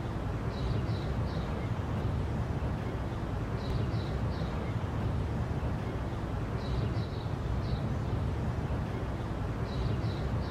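A bird calling a short phrase of about three quick high chirps, repeated roughly every three seconds, over a steady low rumble.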